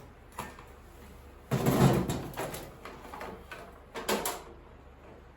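A bread maker being handled: a loud knock with some scraping about a second and a half in, then a couple of lighter knocks about four seconds in.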